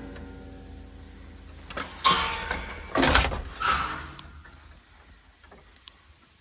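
Privy door being opened and handled: a few loud creaks and knocks during the first four seconds.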